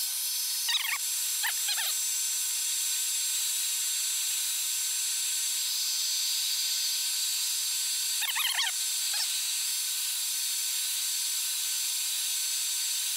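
Hair dryer running on high, a steady hiss with a faint whine, blowing heat onto an iPad 2's glass to soften the adhesive. A few brief high squeaks come through it in short groups, near the start, past the middle and near the end.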